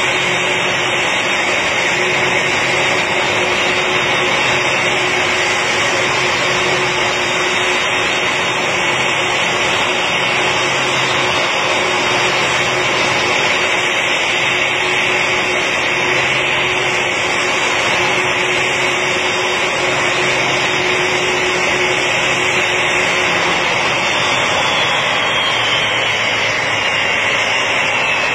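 Boeing 747's jet engines running at idle as the airliner taxis in to a stop: a steady loud whine and rush. A faint falling whine comes in near the end.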